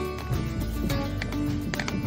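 Instrumental background music laid over the video, with held notes and a quick run of sharply struck notes.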